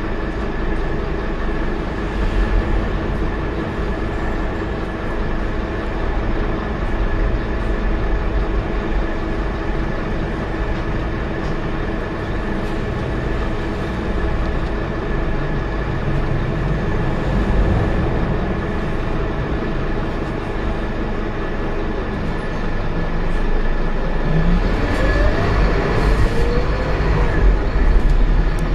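Scania K230UB bus heard from inside the passenger saloon while under way: a steady drone from the five-cylinder engine and drivetrain with a constant whine over a deep rumble. In the last few seconds a rising whine climbs in pitch as the bus pulls away or picks up speed.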